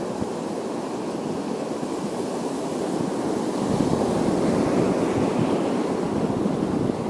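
Sea surf breaking and washing over a shallow rocky shore: a steady rush of water that swells louder about four seconds in.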